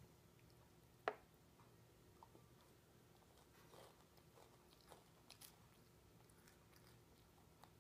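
Mostly quiet room, with a sharp click about a second in and a few faint clicks and chewing sounds as a toddler eats with a plastic spoon from a plastic bowl.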